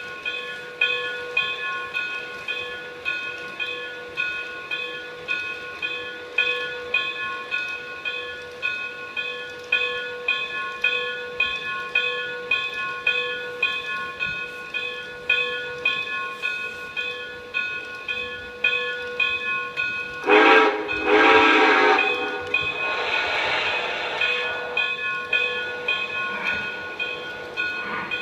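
Sound system of a Lionel Vision Line O-gauge model of Santa Fe 2-10-10-2 steam locomotive 3000, playing an even rhythm of steam chuffs, about two a second, as the engine creeps along. About 20 seconds in the steam whistle blows loudly for about a second and a half, followed by a softer blow of about two seconds.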